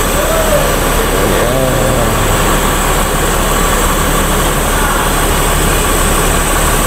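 Bus diesel engine idling with a steady low rumble and hiss.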